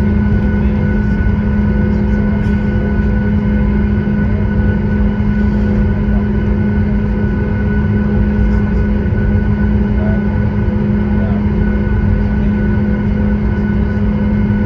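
Steady drone inside the cabin of a Boeing 737 MAX 8 taxiing, its CFM LEAP-1B turbofans running at low power over a low rumble, heard from a window seat over the wing. A strong steady hum sits under fainter steady whines, with no change in level.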